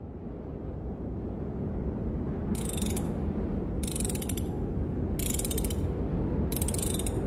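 A low rumbling ambience swells in, with four short bursts of rapid high clicking, evenly spaced about a second and a half apart.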